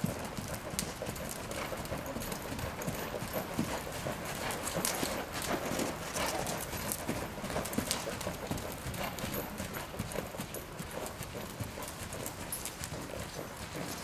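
Hoofbeats of a Quarter Horse gelding under saddle as it travels around on sand arena footing.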